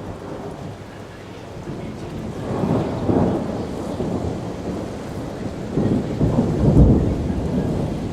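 Thunder rumbling in long, deep swells, one building about three seconds in and a louder one around six to seven seconds in.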